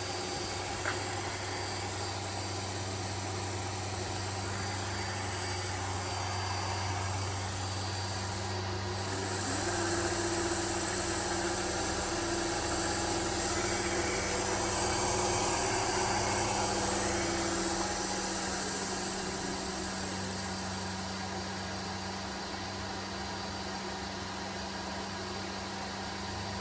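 DC motor running on a Parker 590P DC drive under test, with a steady electrical hum and a motor whine. It gets louder about ten seconds in, as if speeded up, and eases back a little after about twenty seconds.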